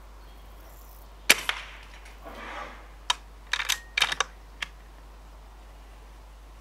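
Air rifle shot: a single sharp crack about a second in, followed by a short rustle and then a scattered run of small sharp clicks.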